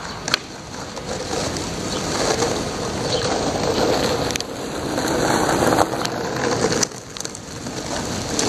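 Rainy street ambience: a steady wet hiss and rumble, with wind buffeting the microphone. It swells and fades a few times, with a brief dip near the end.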